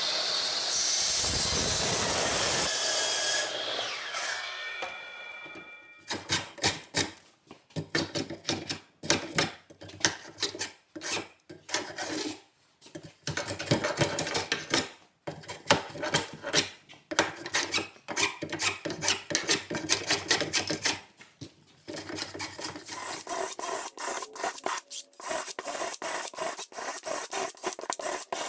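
A steady whirring fades out over the first few seconds. It is followed by repeated back-and-forth strokes of a hand tool scraping on wood, broken by a few short pauses.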